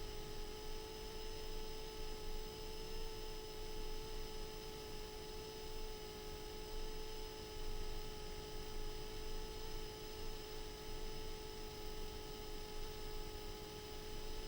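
Steady electronic hum and whine over hiss, a fixed tone with higher overtones that never changes pitch. This is the noise floor of an FPV goggle DVR's audio track rather than motor sound.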